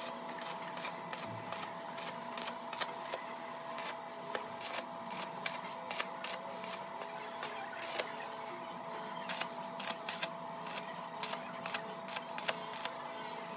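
Stick-welding arc on steel square tubing, crackling and sputtering in irregular sharp pops over a faint steady hum.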